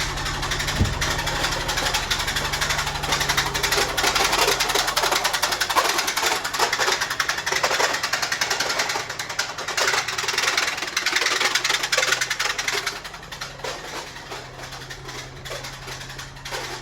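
Infiniti G35's 3.5-litre V6 running with a loud, rapid metallic clatter: severe rod knock. The clatter gets quieter about thirteen seconds in.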